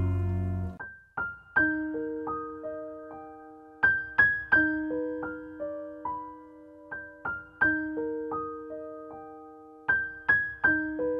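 Slow, soft solo piano music: a full chord dies away in the first second, then single notes and small chords are struck about a second apart, each left to ring and fade.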